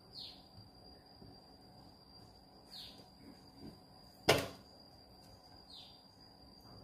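A bird gives short falling chirps about every three seconds over a faint steady high whine. A single sharp knock about four seconds in is the loudest sound.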